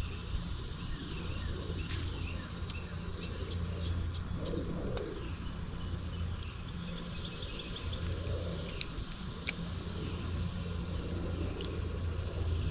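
Birds chirping outdoors, with a clear down-slurred whistle heard twice, over a steady low rumble. Two sharp clicks come about nine seconds in.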